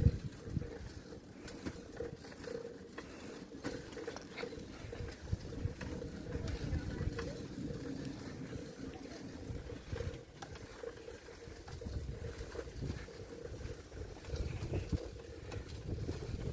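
Wind rumbling on the microphone during a bicycle ride, with scattered small rattles and clicks and a faint steady hum.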